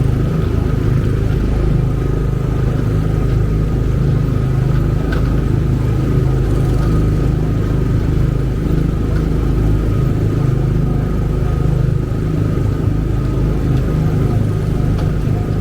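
Steady, loud low rumble with a faint steady whine above it.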